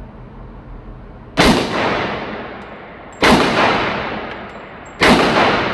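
Three 9mm pistol shots from a Glock 34, evenly spaced about two seconds apart. Each shot rings out with a long echo off the concrete of an indoor shooting range.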